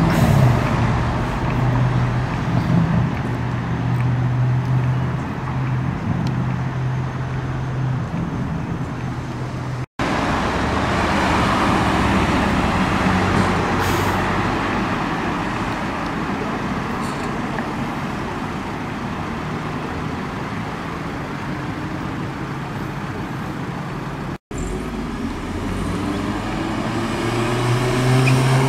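Street traffic: car engines running steadily at low revs with road noise, and near the end an engine's pitch rising as a car accelerates away.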